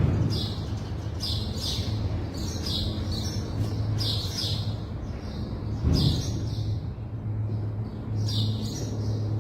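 Small birds chirping in short quick runs, over a steady low hum, with a dull knock about six seconds in.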